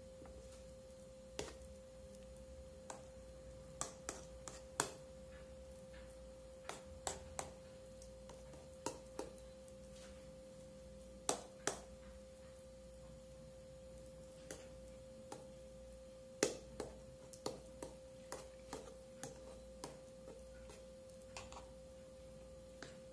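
Metal spoon clinking and tapping against a dark tube-shaped mould as cuscuz paulista is pressed and smoothed into it: irregular sharp clicks, sometimes several in quick succession, over a faint steady hum.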